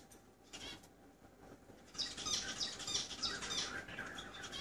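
Small caged pet-shop birds chirping, with quick runs of short high calls starting about two seconds in.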